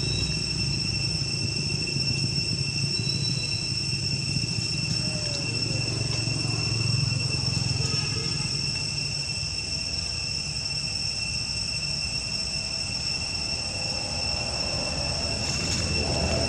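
Steady outdoor background: an even, high-pitched whine with a low rumble beneath it. The rumble eases off in the middle and swells again near the end.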